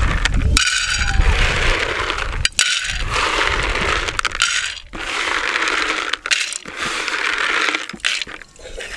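Raw groundnuts (peanuts) poured from a plastic bowl into a shallow metal frying pan over a charcoal stove, rattling and clattering on the metal in several bouts of a second or two each, and spread in the pan by hand.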